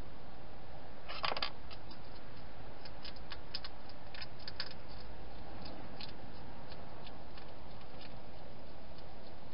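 A European hedgehog crunching dry food: a quick run of sharp crunches about a second in, then scattered crunching clicks for a few seconds, over a steady hiss.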